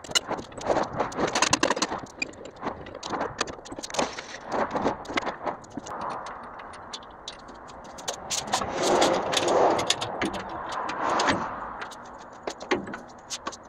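Metal clinking, knocking and rattling of hand work with tools and parts while fitting motor mounts for a V8 engine swap: a quick run of sharp knocks, then a few seconds of rougher scraping rattle about two-thirds of the way through.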